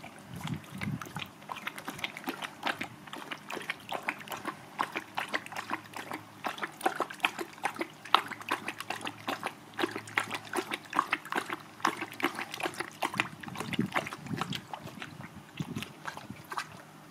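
Great Dane puppy lapping water from a koi pond: a quick, steady run of wet, splashy laps that tails off near the end.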